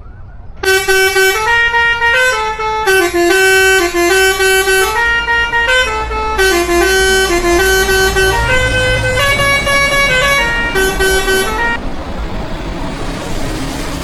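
Truck's custom musical horn playing a tune of short stepped notes, starting under a second in and stopping about twelve seconds in. After it stops, a steady rush of road and engine noise remains.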